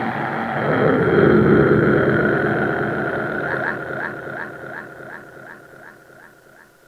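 Designed sound effect: a noisy rumble that swells about a second in, then slowly fades out. In its second half a fast repeating chirp, about three a second, sounds over a steady high tone.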